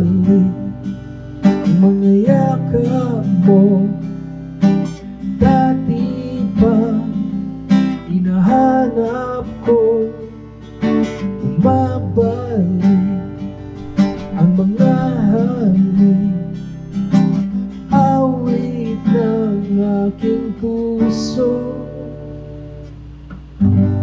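Acoustic guitar strummed in a slow, steady rhythm while a man sings a ballad over it. Near the end the chords die away and a fresh strum comes in.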